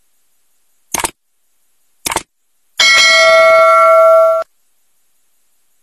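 Subscribe-button sound effect: two mouse clicks about a second apart, then a notification bell ringing for about a second and a half, cut off suddenly.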